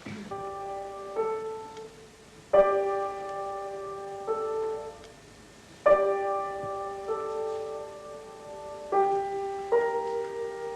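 Piano playing slow, sustained chords: a new chord is struck every two to three seconds and left to ring and fade, with softer single notes added between them.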